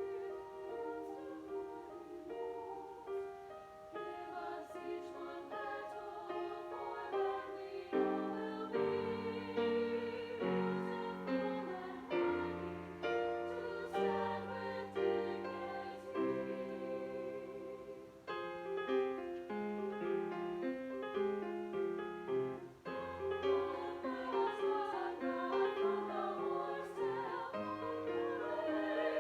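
Chamber choir singing in parts, with piano. Higher voices carry the opening, and lower parts join in about eight seconds in for a fuller sound.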